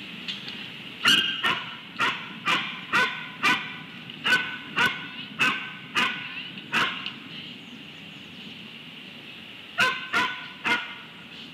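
A canine barking: a run of about a dozen short, sharp barks at roughly two a second, then after a pause of about three seconds a quick burst of three more.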